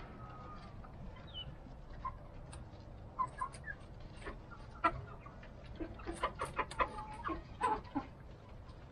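Rhode Island Red hens clucking in short, scattered notes while they peck at food, with small clicks and taps among them. The clucks and clicks grow busier past the middle.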